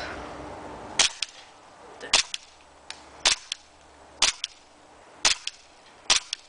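Tokyo Marui G18C green-gas blowback airsoft pistol fired semi-automatically, six sharp shots about a second apart, each followed closely by a fainter click.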